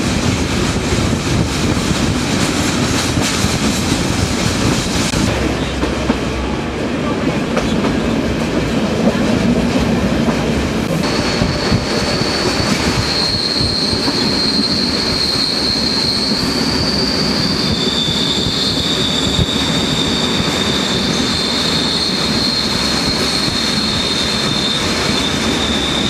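Flåm Railway passenger train running along the mountain line, heard from one of its coaches: a steady rumble of wheels on rail. About eleven seconds in, a high, steady wheel squeal starts up as the train rounds a curve, and it carries on to the end.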